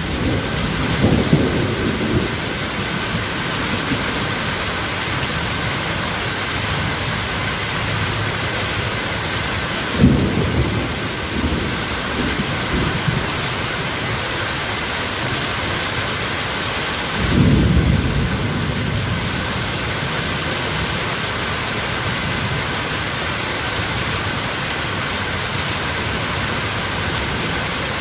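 Steady rain falling as an even hiss, with thunder rumbling three times: at the start, a sharper crack about ten seconds in, and a longer rumble about seventeen seconds in.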